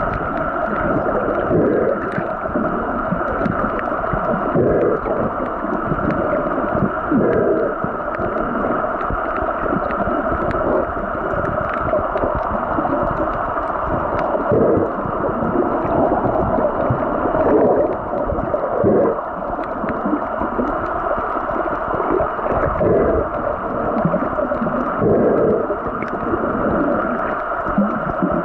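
Muffled underwater sound picked up by a waterproof compact camera's microphone while submerged: a steady dense rushing with irregular swishes of moving water every few seconds.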